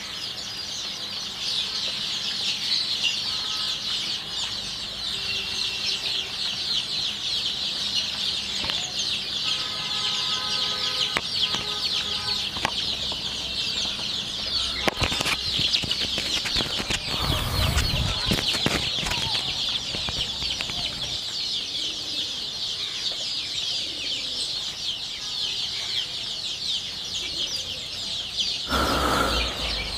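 A large flock of young desi chicks peeping continuously and densely, high-pitched, as they crowd and peck at a plate of mash feed. There are a few wing flutters and a brief spell of low knocks about halfway through.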